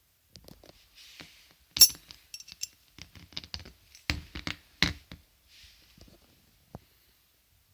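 A heavy metal belt buckle being handled, giving a string of knocks and clinks, the loudest about two seconds in, with a couple of short scrapes between them.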